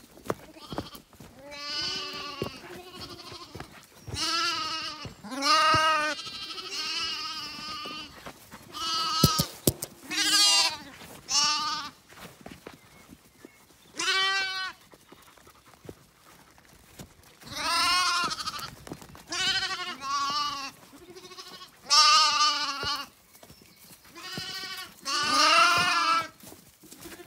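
Zwartbles lambs bleating, many wavering calls one after another with short gaps between, as hungry lambs do when expecting their evening feed.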